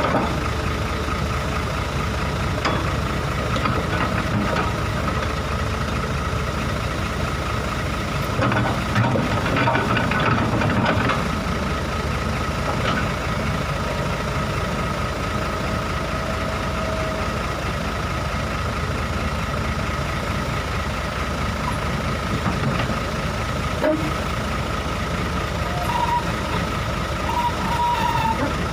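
Heavy diesel machinery running steadily, with a thin high whine held over the engine rumble, as a Kobelco excavator climbs onto a truck trailer.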